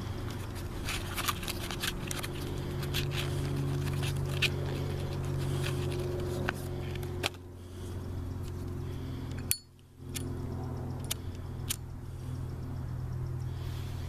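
Cigarette pack being handled with a run of small crinkling clicks, then a Zippo lighter's metal lid snaps open with a sharp metallic clink about two-thirds of the way through, followed by clicks from the flint wheel being struck to light it near the end. A steady low hum runs underneath.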